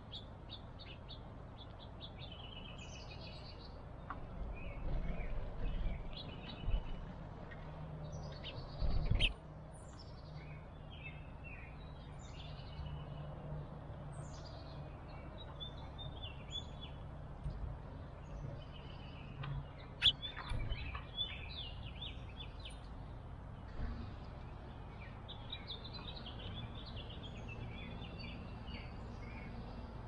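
Small songbirds chirping and calling in many short notes, with a few low thumps between about five and nine seconds in.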